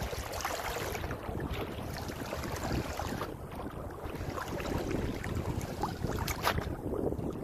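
Shallow seawater lapping and sloshing close by, with wind buffeting the microphone and a few short splashes, the sharpest one near the end.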